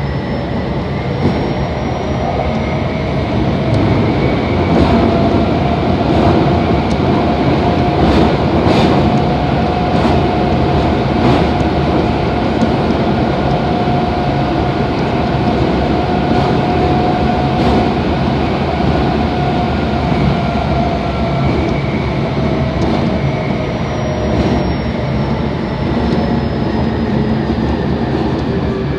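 Kobe Municipal Subway 3000 series car running at speed, heard from inside, its Hitachi GTO inverter and traction motors whining in several tones that climb slightly in pitch, hold steady, then fall in the last third, over rumble and a few rail-joint clicks. This car's speed-up and slow-down sound above about 40 km/h differs a little from other cars of the class, which the recordist suspects is an unusual noise.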